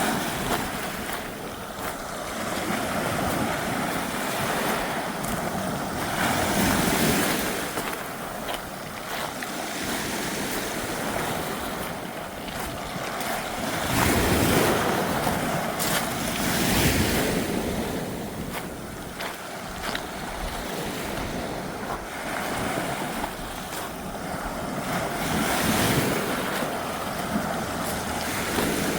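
Ocean surf: waves surging and breaking on the shore, swelling and falling every few seconds, with wind blowing across the microphone.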